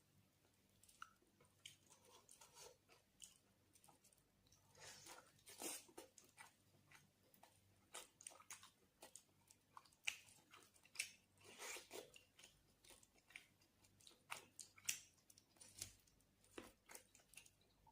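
A person chewing chicken and rice close to the microphone: irregular short, sharp chewing and biting clicks in clusters.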